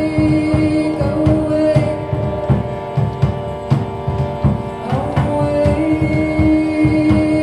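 Live band music: a steady held drone chord changing pitch about five seconds in, under a quick, busy hand-drum pattern, with no singing.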